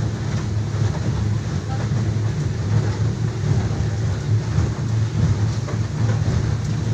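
Passenger speedboat's engines droning steadily at cruising speed, heard from inside the enclosed passenger cabin.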